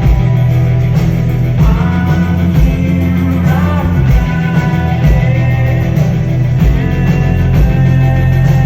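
Rock band playing live: loud bass, drums and guitars.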